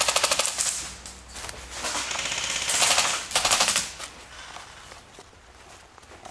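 Airsoft guns firing rapid full-auto bursts, several in the first four seconds, each a fast run of sharp clicks.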